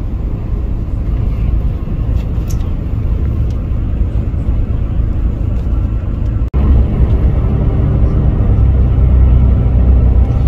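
Steady low rumble of road and engine noise inside a moving vehicle. It cuts out for an instant about two-thirds of the way through and comes back a little louder.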